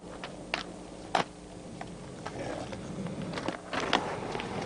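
Skateboard on concrete: several sharp clacks of the board and wheels, the loudest about a second in, over a rolling noise that grows toward the end. A steady low hum runs underneath.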